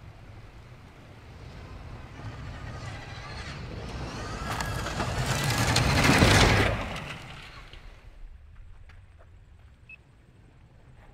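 A rally car at speed on a gravel stage, engine and tyres on loose gravel, growing louder as it approaches, loudest as it passes about six seconds in, then fading quickly.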